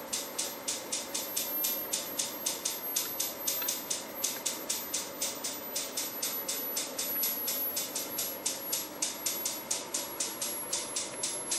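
Rapid, even ticking at about five ticks a second, with a faint steady hum underneath and a thin, very high whine that slowly falls in pitch.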